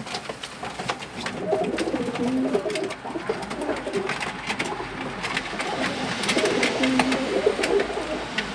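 Several domestic pigeons cooing, overlapping low calls throughout, with scattered light clicks among them.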